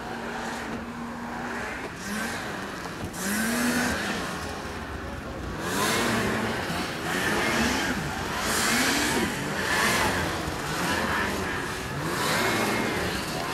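Racing snowmobile engines revving up and down again and again, their pitch rising and falling every second or two as the sleds run the jumps and bumps of a snocross track.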